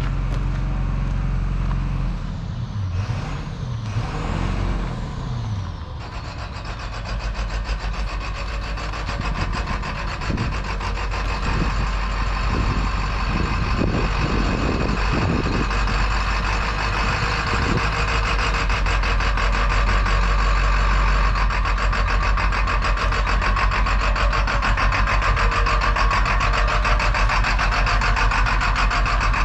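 Short school bus engine running as the bus is driven, its pitch rising and falling over the first few seconds, then a steady drone that grows louder.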